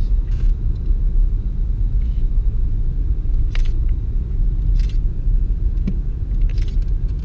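Low rumble of a Vauxhall Astra heard from inside its cabin as it drives, with a few light clicks and knocks scattered through.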